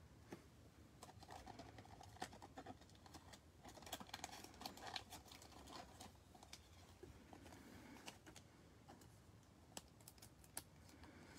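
Faint scattered clicks and light rustling of trading cards being handled and slid against one another, thickest from about one to five seconds in.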